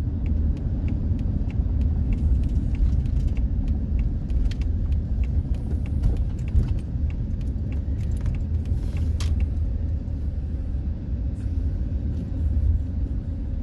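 Minivan driving on a highway, heard from inside the cabin: a steady low rumble of engine and road noise. A faint rapid ticking runs through the first few seconds.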